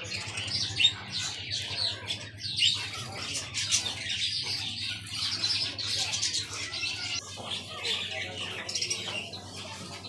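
Caged lovebirds and finches chirping and chattering together, a dense steady chorus of many high chirps, with a faint low hum underneath.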